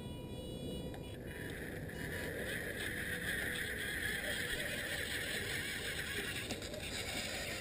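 Small electric motors and gearing of a Hobby Engine RC excavator whining steadily as it tracks across grass. The whine starts about a second in and fades out about a second before the end.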